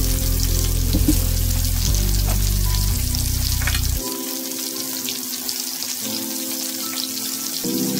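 Breaded tilapia fillets frying in hot vegetable oil in a cast iron skillet, a steady sizzle. Background music plays under it, with sustained chords that change every second or two.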